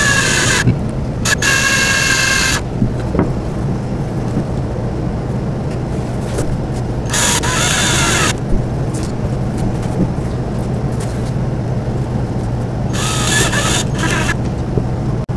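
Cordless drill driving screws through thin panels into small knobs, its motor whining in four short bursts of a second or so with pauses between, over a steady low hum.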